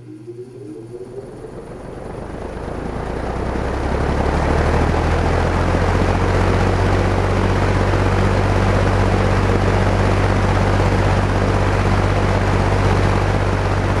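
1969 Markel box fan, with its large RMR motor and three aluminum blades, starting up from off to high: a rising whine as the motor spins up, building over about four seconds into a steady rush of air over a low motor hum.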